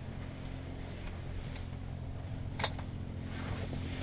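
A steady low mechanical hum, with a single sharp click about two and a half seconds in.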